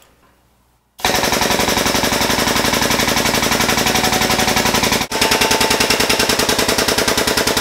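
Air-over-hydraulic ram jack's air-driven pump chattering in rapid, even pulses as it pushes a tube bender's die through a bend. It starts about a second in and breaks off for an instant around five seconds before starting again.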